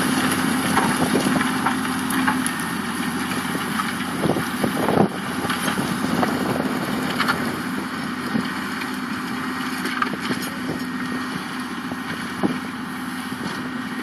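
New Holland 8870 tractor's diesel engine running steadily while ploughing, with a steady hum, a few knocks about five seconds in, and wind on the microphone; it grows slightly fainter.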